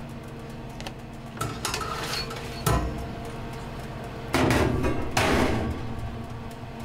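Loaves of bread dough being loaded onto a hot marble baking stone in a convection oven. There are light knocks and one sharp clack, then two short rushing scrapes about a second apart.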